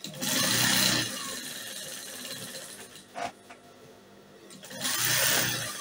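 Industrial straight-stitch sewing machine top-stitching crinoline onto satin fabric, in two short bursts of stitching about four seconds apart. A brief knock comes between them.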